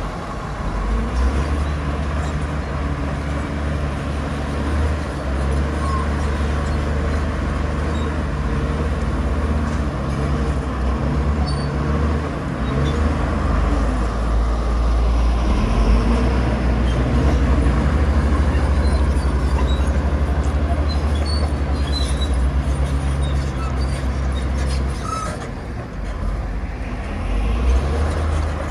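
Komatsu bulldozer's diesel engine running steadily under load, a deep continuous drone. It eases off briefly a little before the end, then picks up again.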